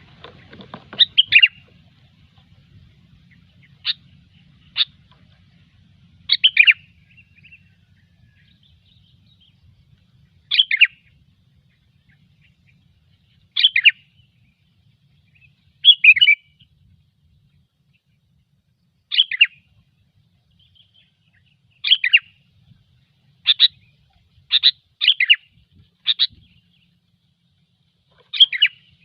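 Sooty-headed bulbul (kutilang) calling: short, loud chattering phrases, about fourteen of them, one every one to three seconds.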